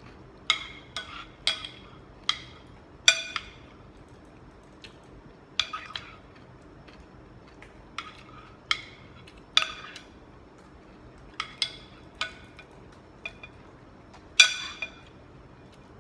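Cutlery clinking and scraping against dishes while eating: a dozen or so sharp, irregular strikes, each with a brief ring.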